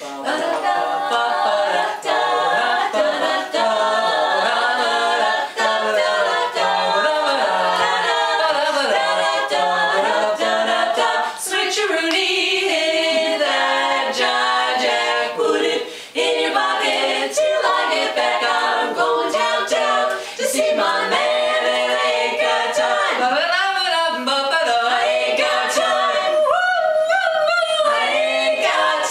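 Women's barbershop quartet singing a cappella in close four-part harmony, with brief pauses for breath.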